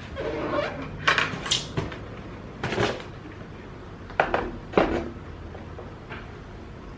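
Handling noise from unpacking a sewing machine: packing material rustling, then a series of sharp knocks and clatters as the machine and its parts are moved and set down.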